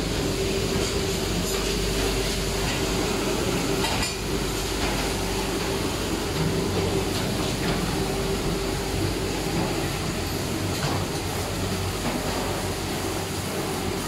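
G-TEK single-tank conveyor dishwasher running: a steady rush of noise over a motor hum, with a faint knock about four seconds in.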